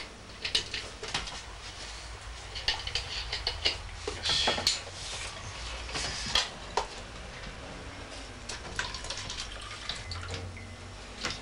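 Irregular clicks, knocks and light clattering of small objects being handled in a small room, over a faint steady low hum.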